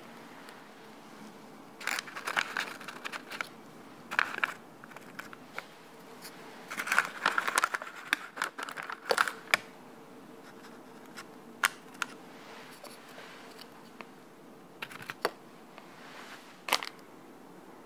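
Lotus biscuits being laid by hand into a parchment-paper-lined cake mould: the baking-paper liner crinkles and rustles in short bursts, and a few sharp clicks come as biscuits are set down.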